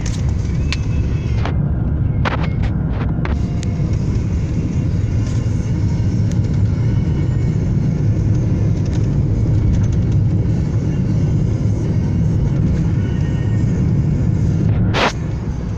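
Car driving along a road, heard from inside the cabin: a steady low rumble of engine, tyre and wind noise. A few short clicks come about two to three seconds in, and a sharper knock near the end, after which the rumble drops.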